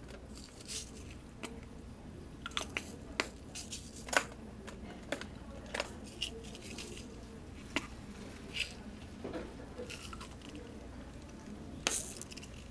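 Irregular small clicks and soft rustles of hands handling the sewing machine, fabric hoop and silk ribbon, spaced about half a second to a second apart, the loudest about four seconds in and near the end.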